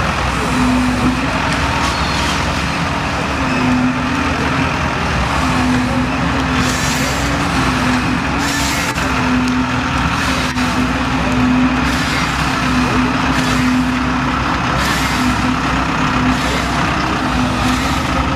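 Farm tractor's diesel engine running steadily under load, with a droning whine that repeatedly rises and falls slightly in pitch as its hydraulic forestry crane works, and a few brief hissing surges midway.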